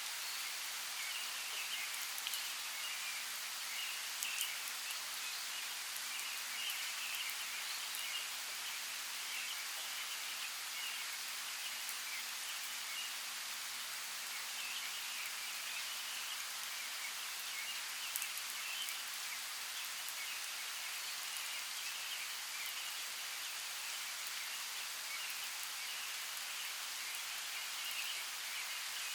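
Light rain falling on forest leaves: a steady, even patter with occasional sharper drops, while birds twitter and chirp in bursts throughout.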